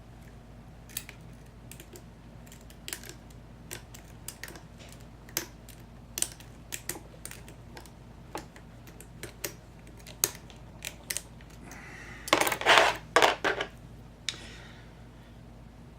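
Lock pick and tension wrench clicking and scraping in the keyway of an American Lock 5100 padlock as its pins are worked: scattered light clicks, with a brief louder clatter of several strokes about twelve seconds in.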